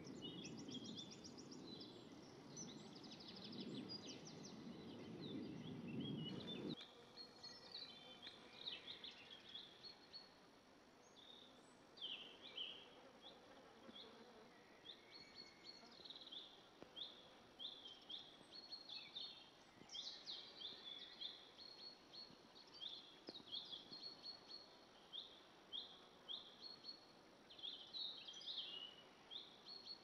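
Quiet outdoor ambience with small birds calling. For the first several seconds there is low background noise with rapid high trills. The sound then changes abruptly to a stiller background, where a bird repeats short high chirps about once a second.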